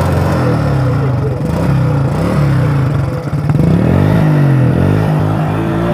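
Motorcycle engine revving through its exhaust, its pitch rising and falling in several blips of the throttle.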